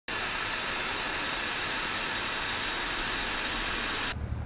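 Steady rushing hiss of airflow and jet engine noise inside a military jet's cockpit in flight. It cuts off about four seconds in, giving way to a low rumble.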